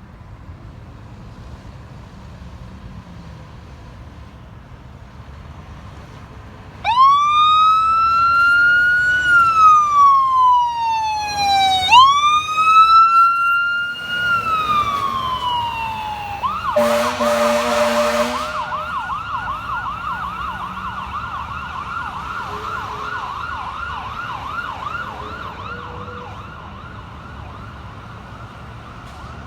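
Fire rescue truck's electronic siren starts about a quarter of the way in, sweeping slowly up and down twice in a wail. Then an air horn blasts for about two seconds as the siren switches to a fast yelp, which slowly fades. Road traffic noise runs underneath.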